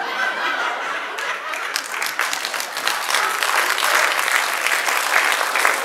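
Theatre audience applauding, the clapping thickening over the first couple of seconds into dense, steady applause.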